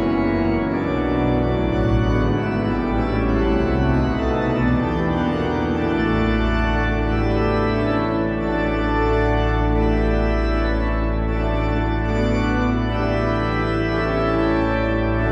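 Blackburn Cathedral's pipe organ playing loud sustained chords, with a deep pedal bass note coming in about six seconds in and held.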